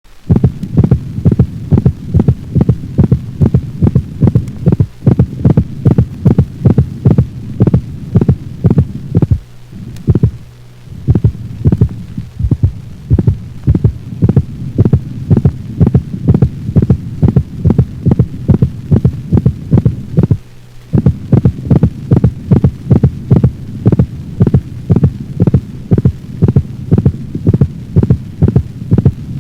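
Recorded dog heart sounds, as heard through a stethoscope: regular lub-dub beats at about two a second over a steady low hum, briefly broken twice.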